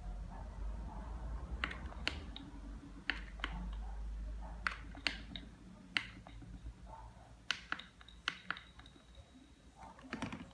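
Buttons on a Foscam FBM3501T baby monitor's handheld parent unit clicking as they are pressed, about a dozen irregular clicks, over a low hum that fades about halfway through.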